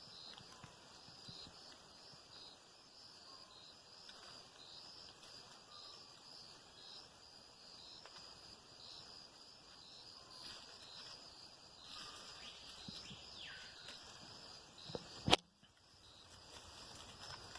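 Insects chirping in a steady high drone with evenly repeating chirps, and a single sharp snap about fifteen seconds in.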